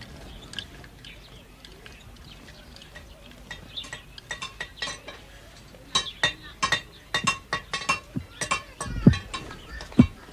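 Irregular struck percussion: a few light strikes about three and a half seconds in, then a quicker run of sharp ringing strikes from about six seconds, with deep low strokes near the end.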